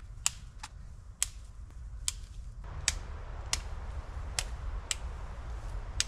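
Small dry twigs cracking: about eight sharp, irregular snaps over a faint rustle.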